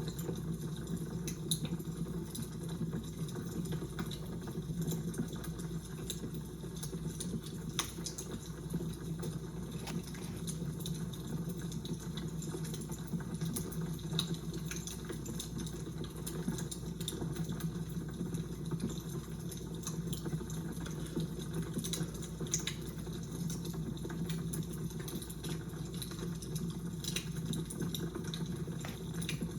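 Fire crackling: many small irregular pops and snaps over a steady low rush.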